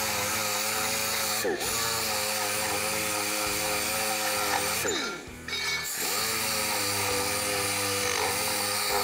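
Pneumatic random orbital sander whining as it sands a steel die plate smooth with an 80-grit disc. Its pitch sags and recovers about a second and a half in. Around five seconds it nearly spins down, then speeds back up.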